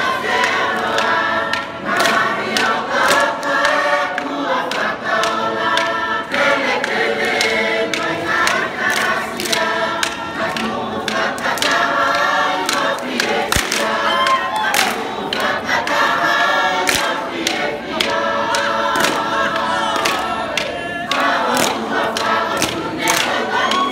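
Large mixed choir singing a Tongan lakalaka in phrases, with frequent sharp hand claps among the voices.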